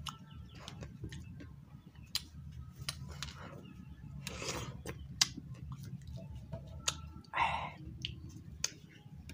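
Close-up eating of fresh watermelon: wet clicking and chewing sounds, with crisp bites into a watermelon wedge, the loudest about four and a half and seven and a half seconds in, over a steady low hum.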